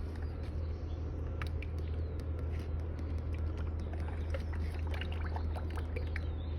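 New motor oil being poured from its bottle into the engine's oil filler, with small trickling and ticking sounds over a steady low rumble.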